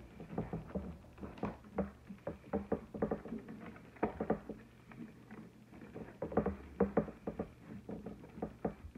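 Wired fabric ribbon rustling and crinkling as hands pull and straighten the knot of a bow, in an irregular run of short rustles and light taps.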